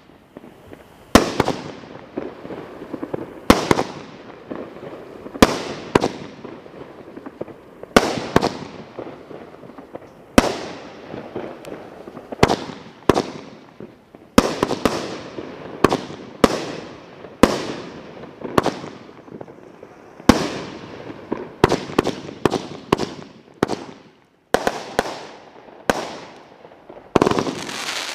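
Cutting Edge 'Outta Here' multi-shot aerial firework firing shot after shot: a sharp bang every second or two, each followed by a fading crackle. The shots come faster in a quick volley near the end.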